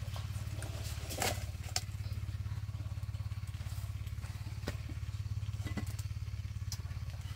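A small engine running steadily with a low, even throb, and a few light clicks and knocks over it, the loudest a little over a second in.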